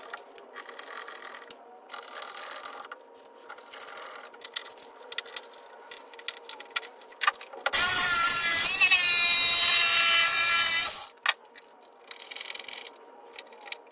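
Light clicks and scrapes of hand tools working at a barrel's metal hoop band. About eight seconds in, a handheld power tool runs for about three seconds, its pitch climbing, then cuts off.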